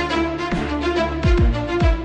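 Background music: held notes over a bass drum whose every hit drops sharply in pitch.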